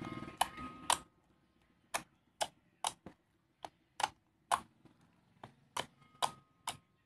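Tofu slime mixed with floam beads being pressed and poked by fingers, giving sharp clicks and pops about twice a second. A low rumble dies away about a second in.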